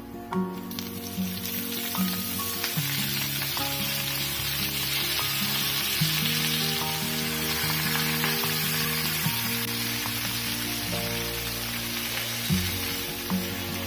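Food frying in hot oil in a pan, with a steady sizzle that starts about a second in. Background music plays underneath.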